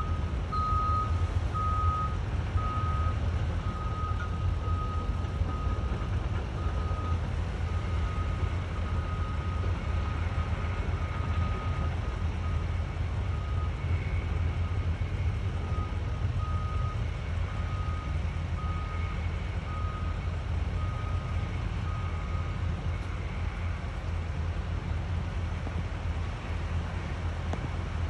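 Backup alarm on heavy construction equipment beeping about once a second, then falling silent well before the end, over a steady low rumble.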